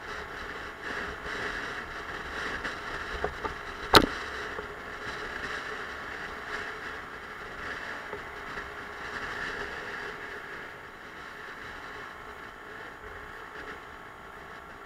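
Suzuki Let's 4 scooter's small single-cylinder four-stroke engine running on the move, under steady wind and road noise. A single sharp click comes about four seconds in.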